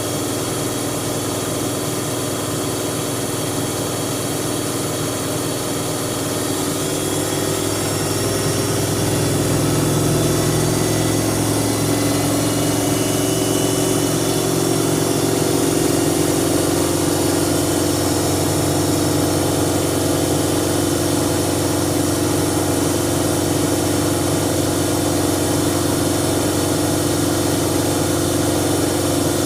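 Siemens Siwamat washing machine running: a steady motor hum from the turning drum, getting louder about eight seconds in and changing pitch again about sixteen seconds in, as the drum speed changes.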